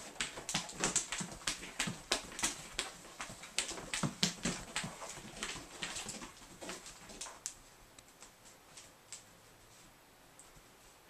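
A cat's paws tapping and scuffing on carpet in rapid, irregular strikes as it spins in tight circles after a laser dot, thinning out and stopping about eight or nine seconds in.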